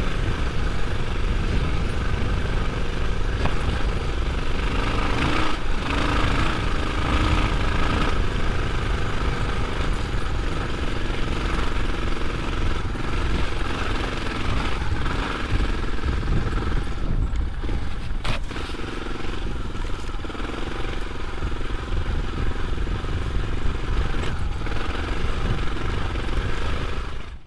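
Suzuki DR650 single-cylinder four-stroke motorcycle engine running while being ridden, under heavy low wind rumble on the microphone. The noise drops away suddenly at the very end.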